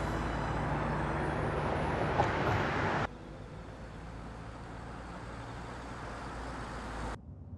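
A car driving by on a street, its engine and tyre noise loud and steady, then cut off abruptly about three seconds in, leaving a quieter low hum.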